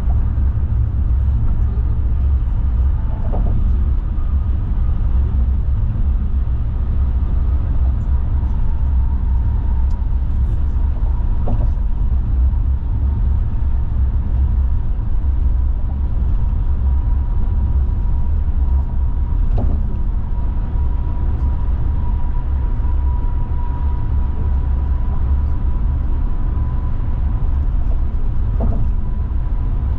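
Car driving at highway speed, heard from inside the cabin: a steady low rumble of tyres and engine. Four faint brief knocks come several seconds apart, and a faint steady whine sits over the rumble from about a quarter of the way in.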